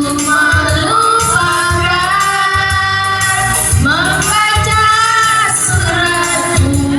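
Music with a woman singing long, held notes that bend in pitch over a steady beat.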